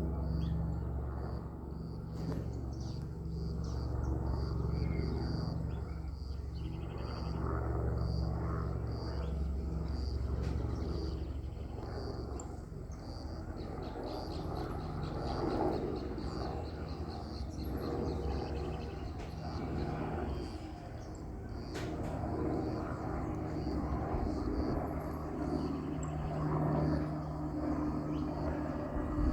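Airbus AS350 Écureuil helicopter, a single-turbine machine, heard as a steady low hum from its engine and rotors, strongest in the first half and then weaker and more uneven. A faint high chirp repeats steadily over the outdoor background.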